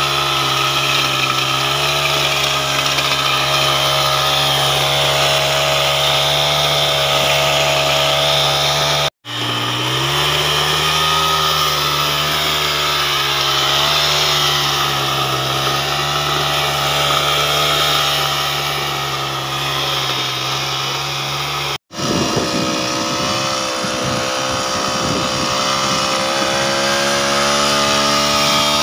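Small petrol engine of a wheeled mini tiller running steadily at high speed as its rotary weeding head churns through weeds and soil. The sound cuts off abruptly twice and picks up again; after the second break the running is rougher, with more low rattle.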